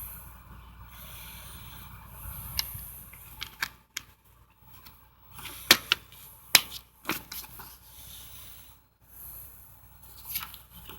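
A plastic DVD case and discs being handled: scattered sharp clicks and light scraping and rustling, with a cluster of loud clicks about halfway through and another near the end.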